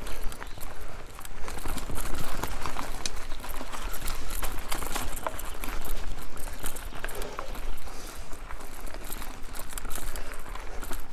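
Mountain bike rolling along a forest trail: a constant crackle and clatter of the tyres over twigs, leaves and rough ground, over a steady low rumble of wind on the microphone.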